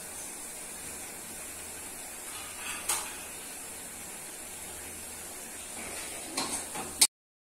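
Steady recording hiss with a light knock about three seconds in and a short run of light knocks near the end, then a sharp click as the sound cuts off to silence.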